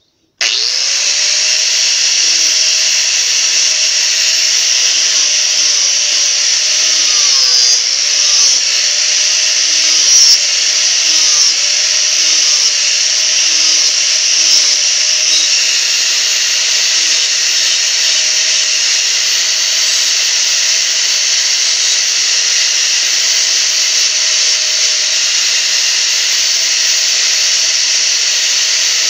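Electric angle grinder switched on about half a second in, then running steadily while grinding a small piece of wood to shape. Its whine dips slightly in pitch now and then as the disc works the wood.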